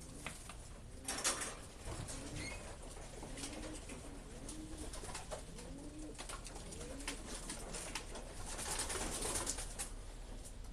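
Racing pigeons cooing in a loft, repeated low rolling coos, with scattered clicks and a louder rustling stretch about nine seconds in.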